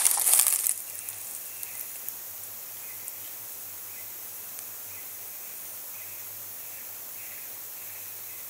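Leaves and vine stems rustling for under a second as they are handled. Then a steady high hiss with faint chirps repeating about once a second.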